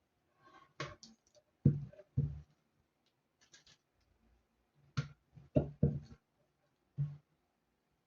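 Knocks and clicks of blender parts and tools being handled during a repair: about eight separate short strikes, some with a heavier thud, the loudest a little under two seconds in and again around five to six seconds in.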